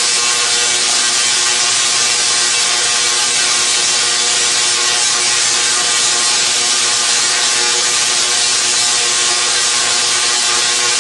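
SIDAC-driven Tesla coil running with 8½ turns on its primary, giving a steady, loud, harsh buzz and hiss.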